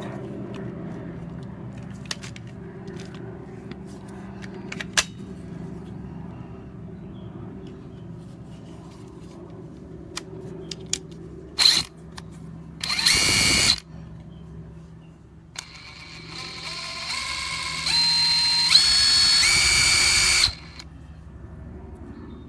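DeWalt DCF894 cordless brushless impact wrench run in short trigger pulls: a quick blip, a one-second whining run, then a longer run of about five seconds whose whine steps up in pitch before it cuts off.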